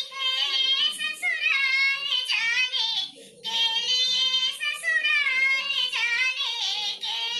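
A woman sings a dadra gari geet, a folk song of the teasing wedding kind, in a high voice with bending, ornamented phrases. There is a brief pause for breath about three seconds in.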